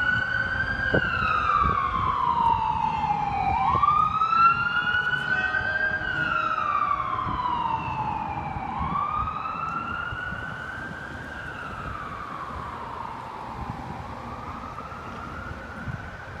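Emergency wail siren of a departing fire engine and ambulance. The tone rises slowly and falls back about every five seconds, three sweeps in all, growing fainter as the vehicles drive away.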